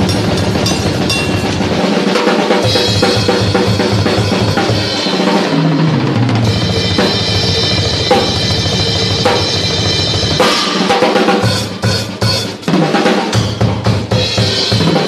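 Drum kit played in a solo, with rapid bass drum strokes under snare and tom hits and Paiste 900 Color Sound cymbals ringing over the top. About eleven seconds in it breaks into separate, accented hits with short gaps between them before the dense playing returns.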